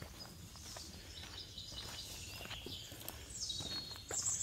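Footsteps on a rocky dirt forest trail, with birds chirping in high, thin notes that grow busier about three seconds in.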